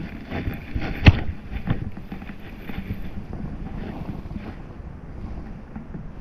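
Wind buffeting the microphone in a steady low rumble, with a few knocks from handling gear in the first two seconds, the loudest about a second in.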